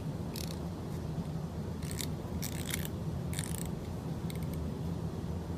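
X-Acto knife cutting open a package: about four short, scratchy cutting strokes, with a steady low hum underneath.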